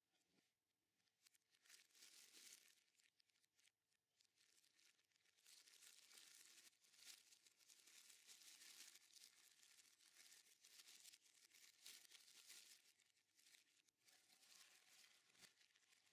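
Faint, on-and-off crinkling of a clear plastic bag as gloved hands handle it, with light scuffs against a cardboard box.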